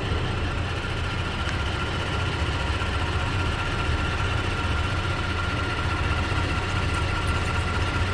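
A motor running steadily, a low hum under a constant high whine.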